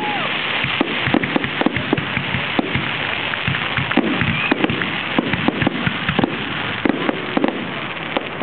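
Fireworks grand finale: a dense, continuous barrage of bangs and crackling from many shells going off in quick succession.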